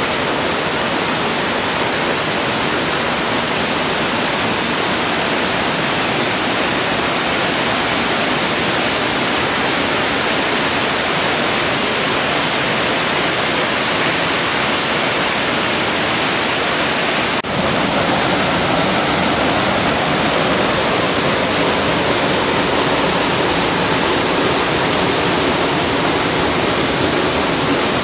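Steady rushing of a waterfall pouring into a rock pool and a rocky stream, loud and even. About two-thirds of the way through it briefly drops out and resumes with a slightly fuller rush.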